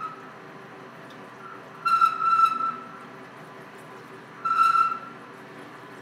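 Lathe spindle running steadily, turning an extended-length 3/4-inch carbide end mill that is being pecked into a turret boring bar holder. Twice, about two seconds in and again near five seconds, the cut sets up a loud, high whistling tone lasting under a second, which stops as each peck backs off.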